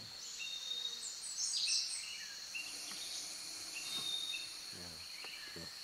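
Tropical rainforest ambience: a steady high insect drone with short, repeated bird chirps, and a quick run of high bird notes about a second and a half in.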